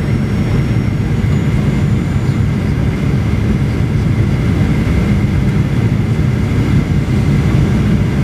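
Steady low rumble of jet engine and airflow noise inside the cabin of a Boeing 737-800 on approach, heard from a window seat near the engine, with a faint steady high whine above it.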